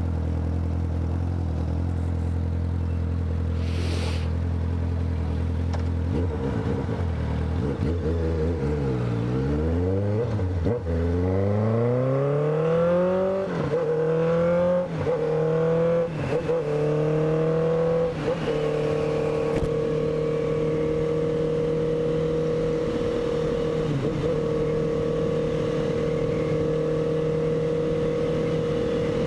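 Honda CB650F's inline-four engine running low and steady, then pulling away. It rises in pitch through several upshifts, each marked by a short dip, and settles into a steady cruise for the second half.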